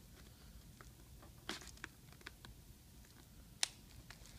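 Faint scattered plastic clicks and ticks as a laptop screen bezel's plastic clip is worked loose, with one sharper click about three and a half seconds in.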